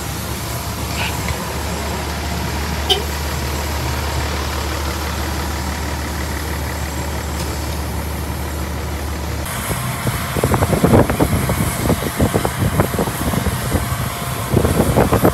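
Steady low hum of an Airbus A330-300 cabin on the ground. About 9.5 s in it gives way abruptly to louder, irregular noise with many short knocks.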